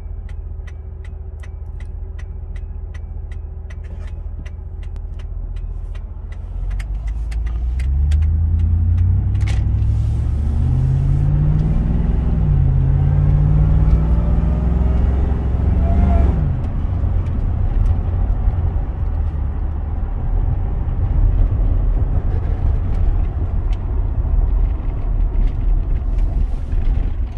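Ford F-150 SVT Lightning's supercharged V8 heard from inside the cab: idling with a light regular ticking, then pulling away hard from about seven seconds in. Its pitch climbs, dips at an automatic gear change around twelve seconds, and climbs again with a thin whine above it. The throttle lifts at about sixteen seconds and it settles to a steady cruise with road noise.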